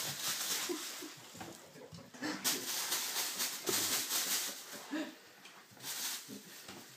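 Thin plastic takeout bag rustling and crinkling as a cat moves about in it, in three spells with quieter gaps between.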